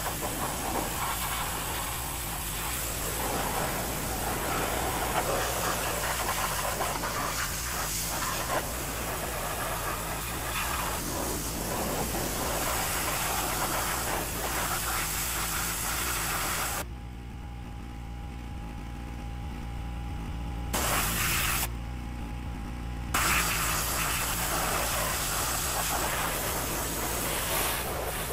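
Pressure-washer jet hissing steadily as it sprays onto a garden-tractor frame and tyres. About 17 seconds in, the spray cuts out for roughly six seconds, with one short burst in the middle, and a quieter steady hum carries on until the hiss resumes.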